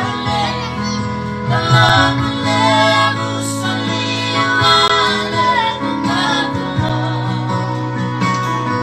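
Fijian gospel song: singing over an instrumental accompaniment with sustained chords and a steady bass line.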